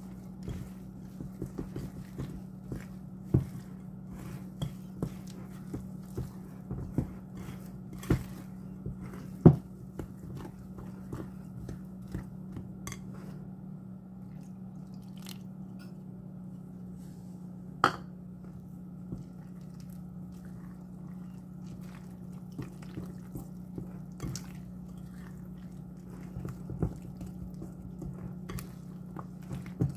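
Wire whisk beating thick pancake batter in a glass bowl, with frequent irregular clicks and taps of the metal whisk against the glass, fewer in the middle. A steady low hum runs underneath.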